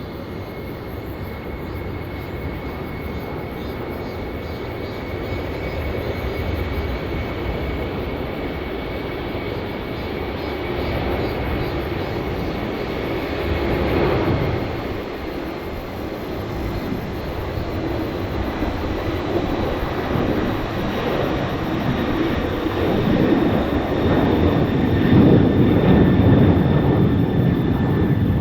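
Jet engines of a Korean Air cargo airliner at high power during takeoff: a steady rush with a thin high whine, growing louder toward the end.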